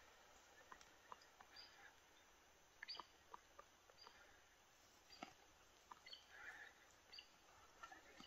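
Near silence, broken by faint, scattered short high chips and ticks, about a dozen of them spread through the stretch.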